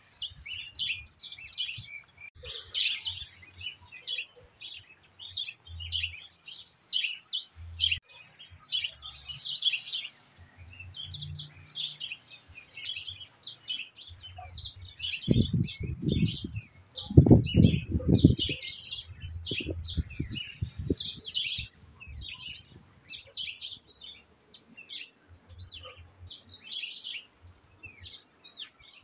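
Many small birds chirping and twittering continuously, with a loud low rumble for a few seconds around the middle.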